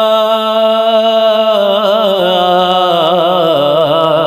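A man's solo voice singing a Balti qasida, a devotional poem, in a chanting style. He holds one long drawn-out note that wavers in ornaments about halfway through and then settles slightly lower.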